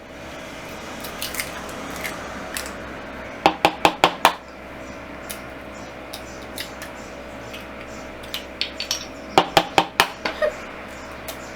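Eggs being cracked against the rim of a bowl: two quick runs of about five sharp knocks, a few seconds apart, with a few single clinks of kitchenware between.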